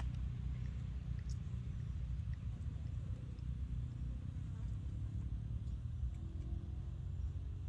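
Insect buzzing, a low steady drone, with a few faint ticks.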